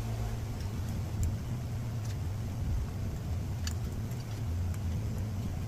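Steady low workshop hum, with a few faint, short clicks as a pump oil can is worked over a cylinder head's valve guides.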